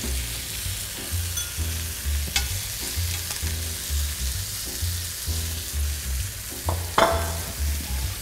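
Tomatoes and onions sizzling in a hot oiled frying pan as they sear, with metal tongs clicking a couple of times, the sharpest with a short ring about seven seconds in. Soft background music with a steady bass beat underneath.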